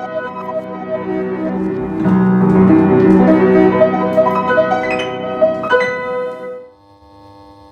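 Piano music, loudest in the middle, settling into a quiet held chord that fades out near the end.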